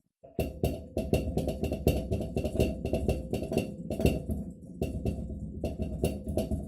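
Atlant refrigerator knocking: rapid, irregular knocks several times a second over a steady hum, starting abruptly just after the start and stopping at the end. This is the evening knocking fault the owner is documenting.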